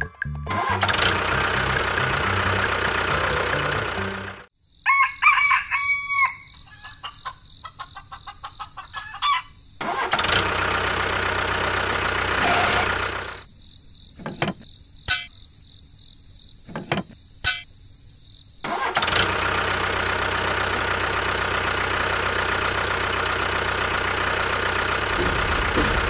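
An engine running in long stretches that cut off for several seconds at a time. In the first gap, about five seconds in, a rooster crows, and a few sharp clicks come in the later gap.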